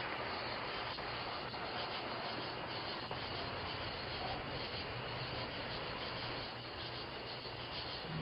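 Steady hiss of outdoor background noise picked up by a doorbell camera's microphone, with a few faint clicks.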